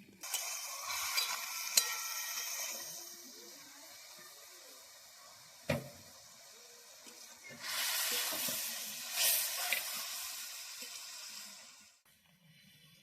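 Spinach frying in a pan, sizzling as it is stirred, loudest in two spells, with a sharp knock about halfway through. The sizzle dies down near the end.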